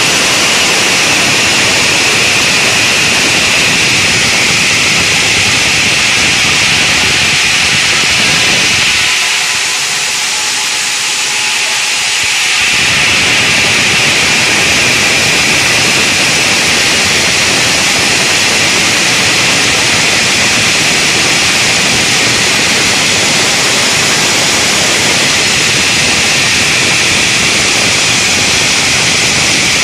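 Multi-blade granite block cutting machine running, its diamond saw blades cutting stone with a loud, steady hiss that carries a high, shrill band. About nine seconds in it goes quieter and thinner for about three seconds, then returns to full level.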